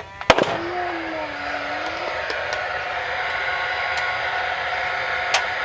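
Steady mechanical whirring noise, with a sharp loud crack about a third of a second in and a smaller one near the end.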